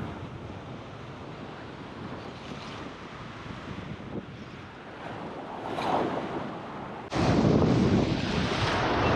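Surf breaking and washing over a low rock ledge: a steady rushing wash that swells about six seconds in. About seven seconds in it turns suddenly much louder, with wind buffeting the microphone.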